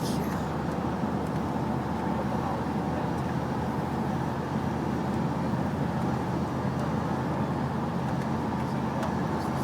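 Steady low rumble and hiss of a van heard from inside its cabin.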